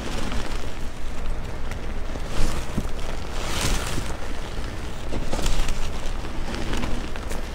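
Soft reformed gym chalk crushed and crumbled in a hand: continuous dry, powdery crunching and rustling, with a few sharper crunches and a louder burst about three and a half seconds in.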